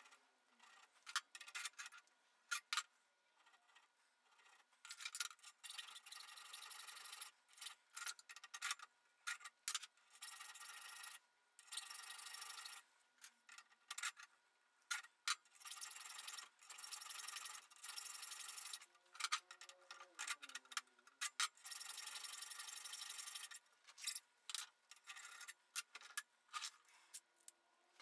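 Hand file rasping on a metal pipe held against a vise, cutting keyway grooves. It goes in about ten strokes of roughly a second each with short gaps between them, and there are lighter scrapes and clicks of the file and work being handled at the start and near the end.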